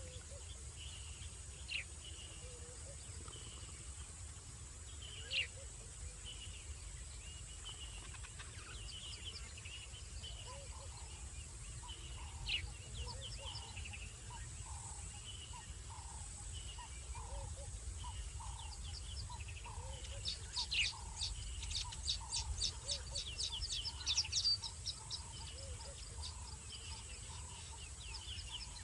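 Night ambience at a bush waterhole: small animals call over a steady high hiss and a low rumble. Short chirping calls repeat every second or so, and a fast run of sharp chirps comes about two-thirds of the way through.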